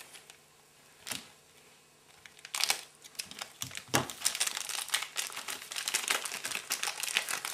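Packaging being crinkled and torn open by hand to unwrap a puzzle. There is a short rustle about a second in, then a quiet pause, then dense, irregular crackling from about two and a half seconds in.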